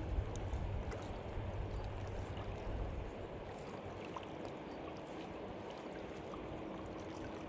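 Wind buffeting the microphone and lake water washing against the bank, the low wind rumble easing after the first few seconds.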